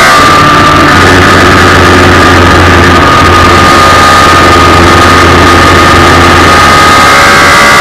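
Onboard sound of a race car's Suzuki Hayabusa 1300 inline-four motorcycle engine with Akrapovič exhaust, running at steady revs through a corner, heard over heavy wind noise on the car's camera. Loud, with the pitch holding level.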